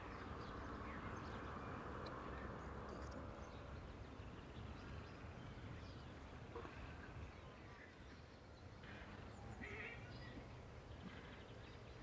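Quiet open-air ambience: a low steady rumble with scattered faint animal calls, a few of them close together about nine to ten seconds in.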